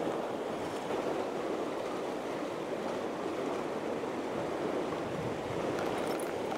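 Sea surf washing against a rocky shore: a steady rush of waves and foaming water.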